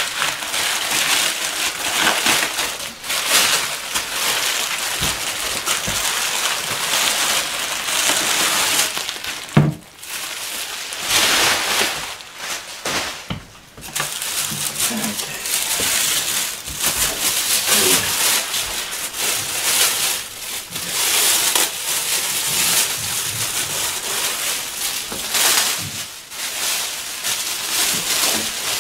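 Bubble wrap and a plastic bag crinkling and rustling as a tail light is unwrapped by hand, with a dull knock about ten seconds in and a couple of short lulls.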